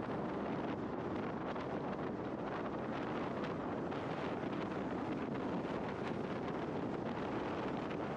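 Steady wind rushing over the microphone of a moving scooter at road speed, with tyre and road noise beneath it.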